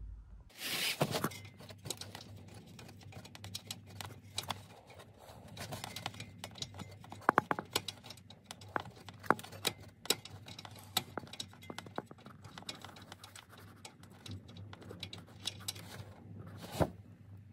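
A 14 mm spanner working the bottom bolt of a rear engine mount loose: scattered, irregular metal clicks and taps, with a louder burst about a second in and a sharp knock near the end.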